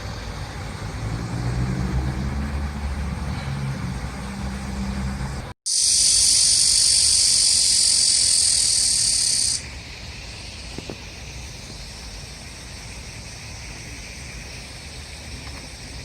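A low hum for about five seconds, then after a sudden cut a loud, steady, high-pitched insect chorus for about four seconds that stops abruptly, leaving a faint hiss.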